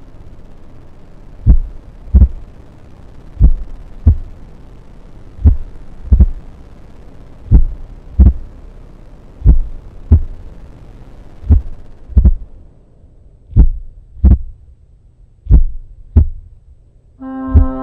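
Slow heartbeat sound effect: paired lub-dub thumps, one pair about every two seconds, over a background hiss that fades away. Music with held tones comes in near the end.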